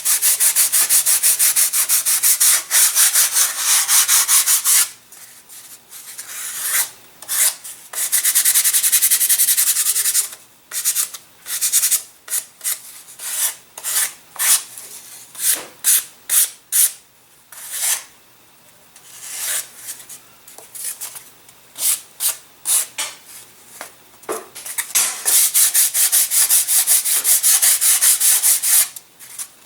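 Hand sanding a model aircraft wing: rapid back-and-forth strokes in runs of a few seconds, with scattered single strokes and pauses in the middle.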